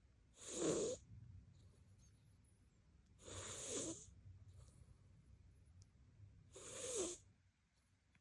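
A sleeping cat snoring: three snores about three seconds apart, each swelling for under a second and then cutting off abruptly.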